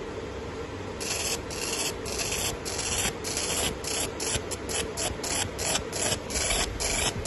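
30W fiber laser marking a steel rod held in a rotary chuck: a hiss of the beam ablating the metal starts about a second in and comes in short runs broken by brief gaps, two or three a second, over a steady low machine hum.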